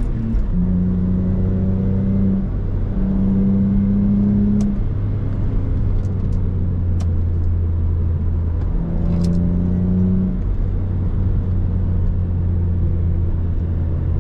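Lexus IS300's 2JZ-GE inline-six engine pulling hard while driven. The engine note holds steady and changes in tone and strength several times as the throttle and gears change.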